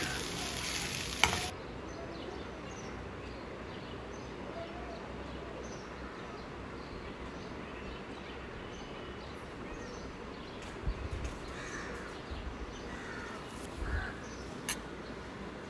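Metal spoon stirring pasta in a hot wok, with a light sizzle and a click of the spoon on the pan, cut off abruptly after about a second and a half. Then a quieter steady background hiss, with a few faint short sounds near the end.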